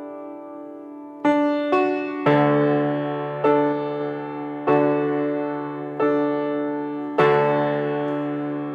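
Solo piano playing slowly. After a held chord fades, it strikes a few single notes, then chords about every second and a bit, each left to ring and fade.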